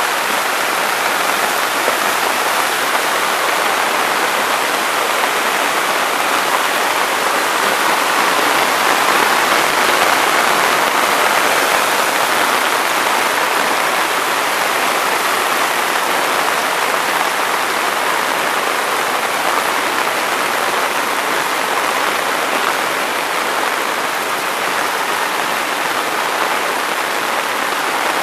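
Rain falling steadily while muddy floodwater rushes down a concrete footpath: a loud, even, unbroken rush of water.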